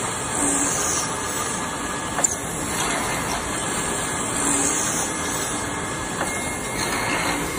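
Automatic wood-turning lathe running and cutting a spinning wooden piece: a steady hiss and whir of machine and cutter, with a brief change in the sound recurring about every four seconds.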